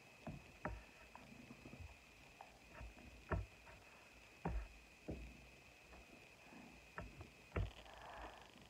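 Faint, irregular taps and soft slaps of hands striking each other and the body while signing, over a faint steady high whine. A soft breathy hiss comes in near the end.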